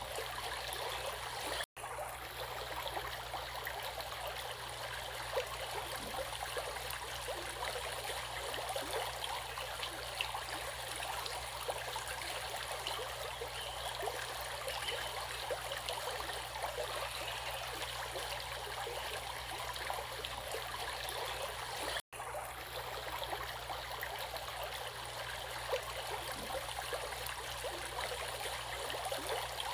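Flowing stream water, a steady rush with small splashes and trickles. The sound cuts out for an instant about two seconds in and again about twenty-two seconds in.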